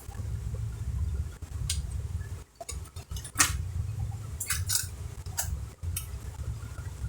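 Scattered small clicks and taps of screws, tools and plastic laptop parts being handled during reassembly, the loudest about three and a half seconds in, over a low steady hum.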